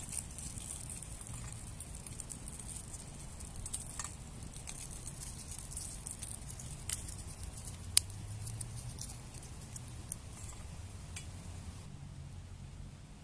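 Small twig-stove wood fire burning under a pot of water: a steady hiss with scattered crackles and snaps, the sharpest about eight seconds in, over a low rumble. The hiss drops away near the end.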